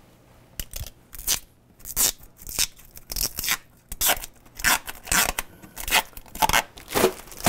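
Protective plastic film being worked loose from a stainless steel dishwasher door, scored along its edges with a razor knife: a run of short, sharp tearing sounds, about two a second.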